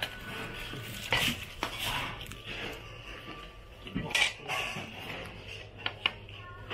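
Intermittent clinking and clattering of steel bowls, pots and utensils in a busy kitchen, a few sharp knocks apart, over a low steady hum.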